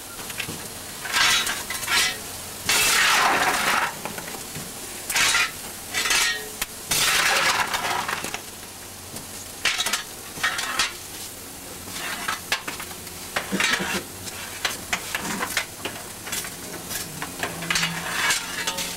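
Fireman working the coal fire in a steam locomotive's firebox: a steel fire iron scraping and rattling through the burning coal at the open firedoor. The noise comes in repeated gritty bursts about a second long, with lighter clicks and scrapes between them.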